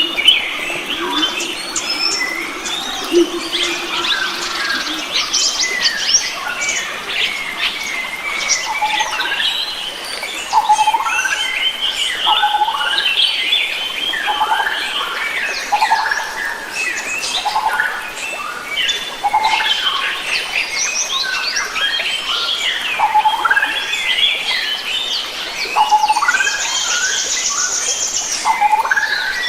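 A chorus of wild forest birds, many short chirps and calls overlapping without a break. A buzzy high trill joins near the end.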